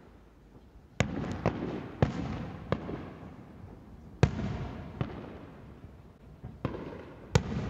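Aerial firework shells bursting some distance away: about eight separate bangs at uneven intervals, each trailing off in a rumbling echo, the loudest about four seconds in and near the end.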